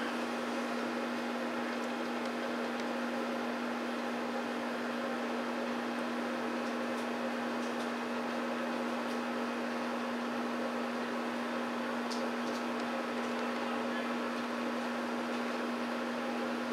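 A steady hum at one unchanging pitch over a constant hiss, with a few faint ticks.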